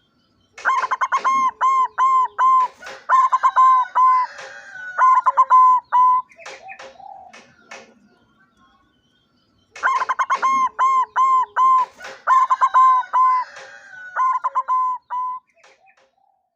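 White barred zebra dove (perkutut) singing its cooing song in two bouts of quick repeated coos, the first starting about half a second in and the second about ten seconds in.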